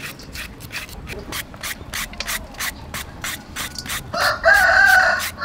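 Quick scraping strokes of a hand shredding peeler cutting thin strips from a firm green fruit, about three or four strokes a second. A rooster crows loudly about four seconds in.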